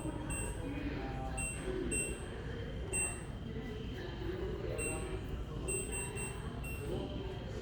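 Short high electronic beeps, sounding irregularly every half second to a second or so, over a steady low hum and distant voices.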